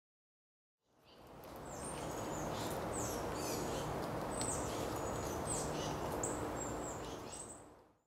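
Outdoor ambience of birds giving short, high chirps that fall in pitch, repeated every second or so, over a steady background hiss with a faint low hum. It fades in about a second in and fades out near the end.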